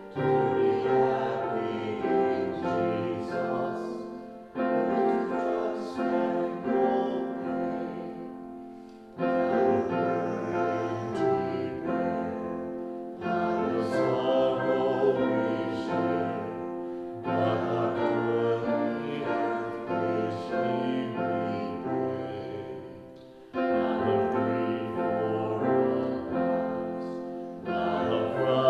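A hymn sung by a man with piano accompaniment. It goes in phrases of about four seconds, each swelling in at the start and tailing off before the next.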